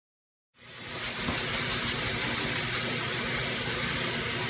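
Kitchen faucet running a steady stream into a sink of collard green leaves, a constant rushing hiss that starts about half a second in.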